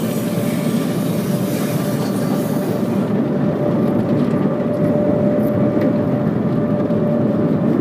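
Automatic car wash heard from inside the car: a steady rush of water and brushes against the car body and windows, over a constant hum. The high hiss of the spray drops away about three seconds in.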